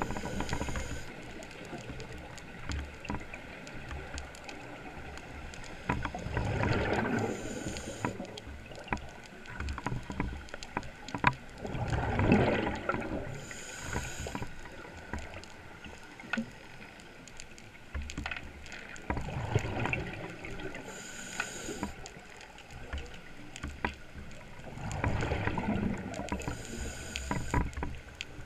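Scuba diver breathing through a regulator, heard underwater: a short hiss on each inhale, then a longer bubbling rush of exhaled air, repeating about every six to seven seconds.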